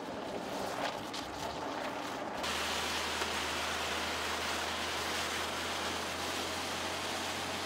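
Tyres of a Mercedes E 220d 4Matic rolling on a wet, slushy road: a steady hissing rush of tyre and water noise. About two and a half seconds in it cuts abruptly to a louder, closer hiss with a steady low hum underneath.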